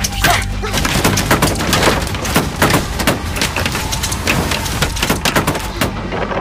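A bamboo arrow trap firing: a dense, rapid stream of sharp wooden knocks and cracks over a steady low rumble.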